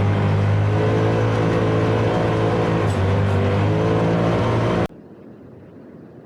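A vehicle engine running steadily under load with a slight dip in pitch partway through, cutting off abruptly about five seconds in; a much fainter steady rushing noise follows.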